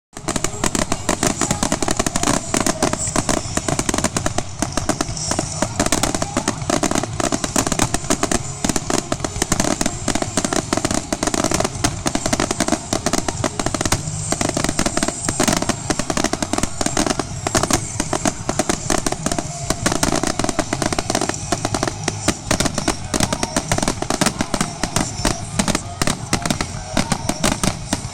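Fireworks grand finale: a dense, unbroken barrage of rapid bangs from many shells going off at once, with no let-up.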